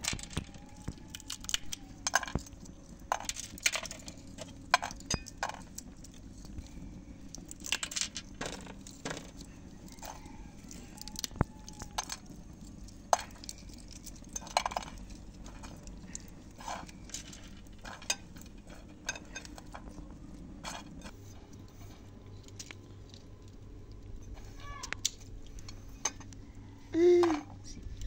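Walnuts being shelled by hand, with irregular sharp clicks and clinks as the shells crack and the pieces drop onto a metal tray. Near the end comes one brief voice-like call.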